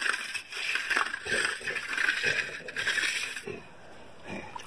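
A hand concrete finishing tool scraped in short repeated strokes over fresh concrete strewn with rock salt for a salt finish, a gritty scraping that stops about three and a half seconds in.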